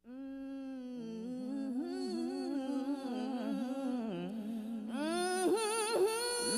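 A voice humming a slow wordless melody. It starts on a held note, grows louder, and from about five seconds in takes on a wavering vibrato as it swells into singing.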